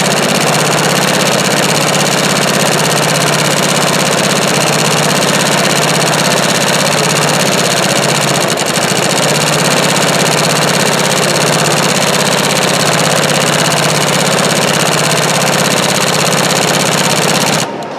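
Industrial sewing machine running steadily as it stitches cursive lettering onto a label, easing off briefly about halfway, then stopping suddenly just before the end.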